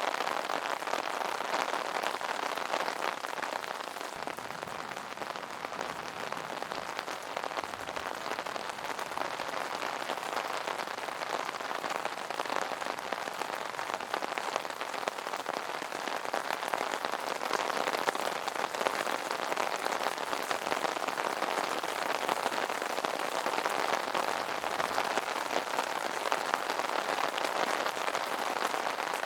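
Steady rain falling on an umbrella: a dense, even patter of drops on the taut canopy.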